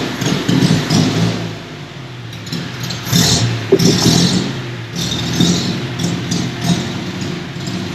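A 1929 Ford Model A's four-cylinder flathead engine running just after being started, revved up a few times.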